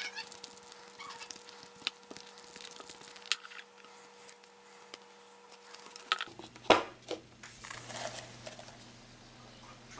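Handling sounds of a sponge dabbing paint onto a papier-mâché egg shell made of kitchen paper: scattered light taps and rustles, with one sharper knock about two-thirds of the way through.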